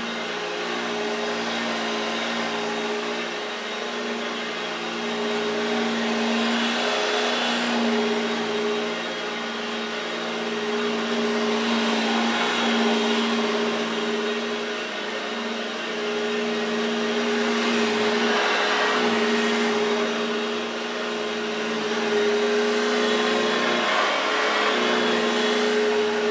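1969 Hoover Junior 1346 upright vacuum cleaner running with a steady motor hum, its rushing air noise swelling and fading every five or six seconds.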